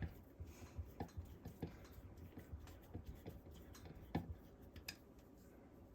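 Faint, irregular light clicks and taps of small screws and hand tools being handled as the screws are fitted by hand, with a slightly louder knock about four seconds in.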